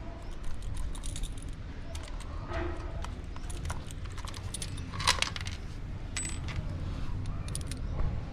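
Metal hand tools from a small bike tool kit clinking and rattling as they are handled: scattered sharp clicks, the loudest about five seconds in, over a steady low rumble.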